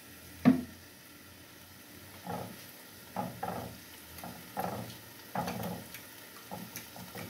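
Food frying in hot cooking oil, sizzling softly, with one brief louder sound about half a second in and several short, irregular swells after it.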